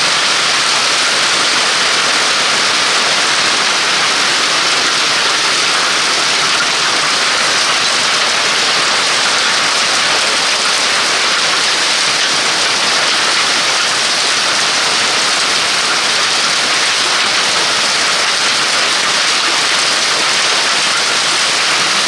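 Hailstorm: hail and heavy rain pelting down on a wooden veranda and its surroundings, a loud, steady, dense hiss with no single impacts standing out.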